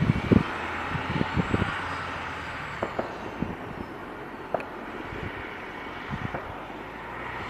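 Military truck carrying a Volcano mine-dispenser rack driving slowly on dirt, its engine running steadily low, with scattered knocks and clanks, several of them in the first two seconds.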